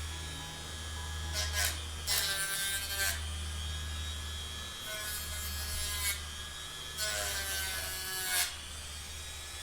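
Dremel rotary tool running and grinding down the metal ears of a hood latch bracket, in four short passes, about two in the first three seconds and two more later.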